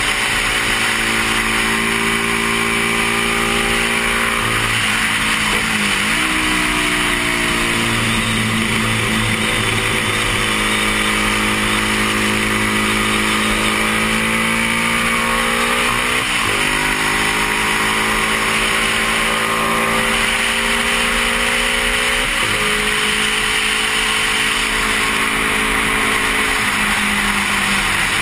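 Stock 1972 Honda CB350 parallel-twin engine running hard under race throttle, heard from the rider's helmet. The pitch climbs slowly and dips sharply about three times as the gears change, over steady wind rush.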